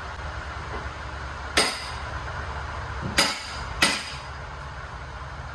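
Three sharp hammer strikes on steel at the loader arm's pin joint: one about a second and a half in, then two close together a little after three seconds. They come as metal is being worked loose for the new pins and bushings.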